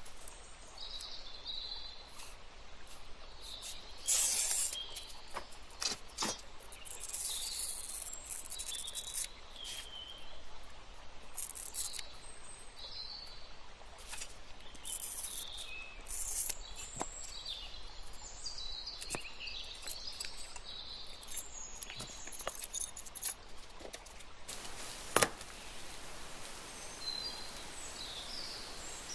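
A carbide-wheel glass cutter scoring a curved line on a sheet of stained glass, in a series of scratchy, high-pitched strokes with short squeaky chirps. Near the end comes one sharp snap as the glass breaks along the score.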